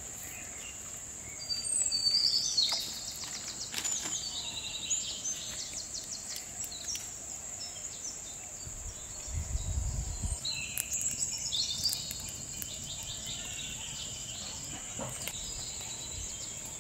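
A steady, high-pitched insect drone from crickets or cicadas, with birds chirping and trilling twice: about two seconds in and again around eleven seconds. A brief low rumble comes near the middle.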